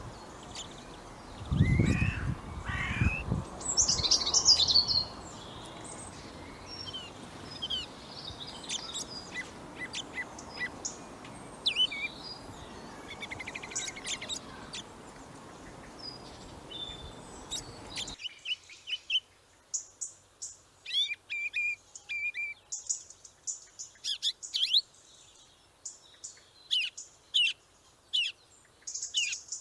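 Small birds chirping and whistling over a steady outdoor background hiss, with a few loud low thuds about two seconds in. After an abrupt change to a quieter background a little past halfway, a bird gives rapid, repeated high chirps.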